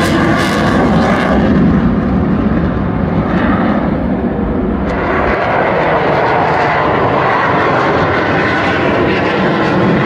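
Fighter jet flying past overhead: loud, steady jet engine noise.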